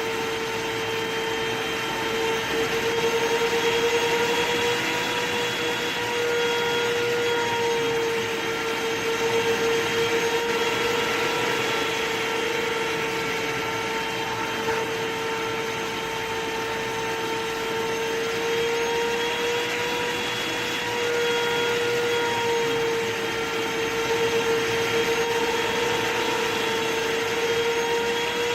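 Vacuum cleaner running steadily: a motor whine with a rushing hiss of air, its pitch wavering slightly and its loudness swelling and easing a little now and then.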